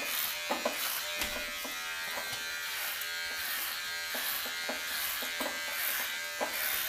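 Unix electric hair clipper with a 12 mm guard running with a steady buzz as it is passed through the hair, cutting, with a few faint clicks along the way.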